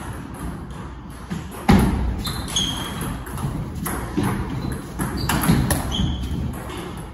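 Table-tennis rally: the ball clicking off the rubber bats and pinging on the table, a handful of sharp hits spread through, the loudest about one and a half seconds in, some with a short high ring.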